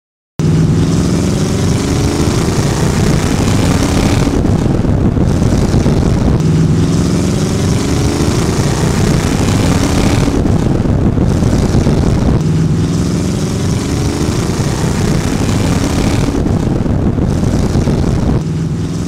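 A car engine running and revving. The same rise-and-fall pattern repeats about every six seconds.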